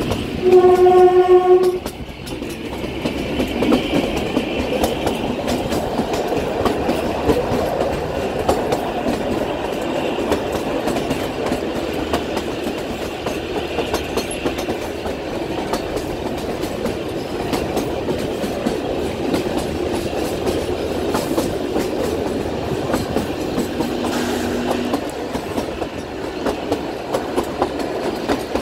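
Kalka–Shimla narrow-gauge toy train running, its horn sounding one loud blast for about a second near the start. Then comes steady rumble and clickety-clack of the wheels on the rails, with a shorter, fainter low note a little past twenty seconds in.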